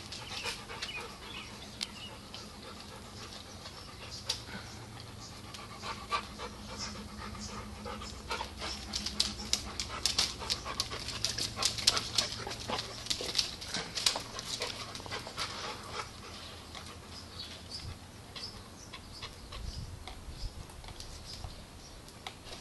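Two dogs panting and scuffling as they wrestle and mount each other, with a run of quick sharp clicks and scrapes in the middle stretch.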